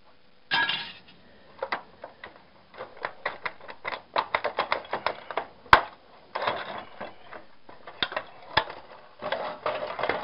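Small metal parts clinking, rattling and knocking as a TV is taken apart by hand, in quick irregular clusters, with one sharp knock about six seconds in.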